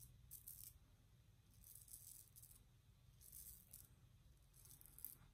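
Focus R28 aluminium shavette blade scraping through lathered stubble: about four faint scraping strokes, each under a second, spaced about a second apart.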